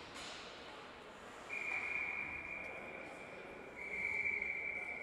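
A long, steady high-pitched tone starts about a second and a half in and holds on, growing louder just before the end.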